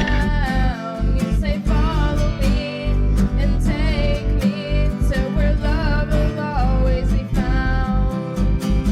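Music: a plucked guitar melody over a steady low bass.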